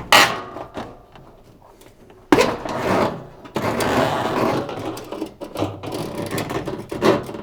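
Washing machine drain hose being dragged out through the machine's cabinet, scraping and rubbing against the parts inside, with knocks and clicks. A single knock comes first, then the scraping starts suddenly about two seconds in and keeps going.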